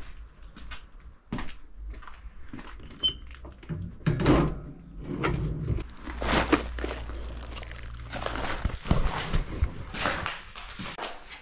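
Irregular knocks, thuds and scuffs of someone walking and clambering through a derelict, fire-damaged house, stepping on rubble and bumping against boards and debris, over a low rumble of handling noise.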